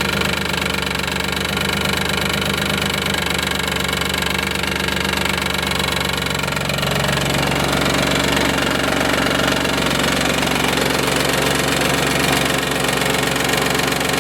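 1995 Isuzu Rodeo's 3.2 L V6 idling with a fast, steady knocking from the engine. The owner cannot tell whether it is the timing belt slapping against a faulty tensioner or a rod knock from worn bottom-end bearings. The tone of the sound shifts about seven seconds in.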